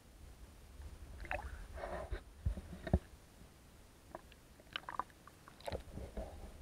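Muffled sloshing and irregular dull knocks from an SJ4000 action camera moving through lake water near the surface, heard through its waterproof housing, with a low rumble underneath.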